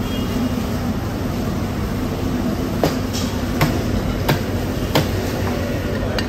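A steady low mechanical hum with four sharp, evenly spaced knocks near the middle, about two-thirds of a second apart, and one more near the end. The knocks are a knife chopping into fish.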